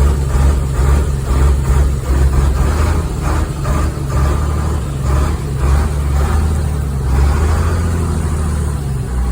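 International DT466 diesel engine of a 1978 International Loadstar 1850 truck running soon after a cold-weather start, a steady low engine note that swells and dips a little. The engine will not idle on its own and is running on a raised throttle.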